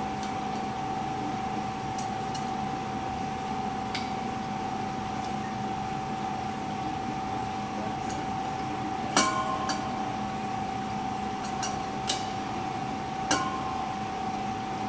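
Scattered sharp metallic clinks of a large wrench working the brass nut of a hydrogen regulator as it is tightened onto a gas cylinder valve, the loudest about nine seconds in, over a steady background hum.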